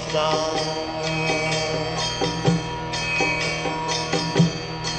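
Devotional music: the instrumental accompaniment of a slowly sung Sanskrit prayer, a sustained tone under a regular percussion beat, with a couple of heavier drum hits in the second half.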